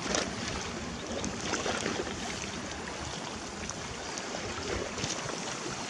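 River water lapping and washing at the bank, with wind blowing over the microphone.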